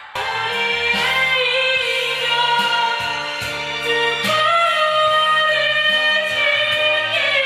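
Music with singing: a melody sung over an instrumental backing, starting abruptly just after a brief gap.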